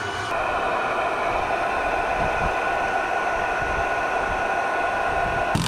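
Handheld induction heater whirring steadily with its fan, heating a seized body-mount bolt to break its threadlocker free. Just before the end an impact wrench starts hammering loudly.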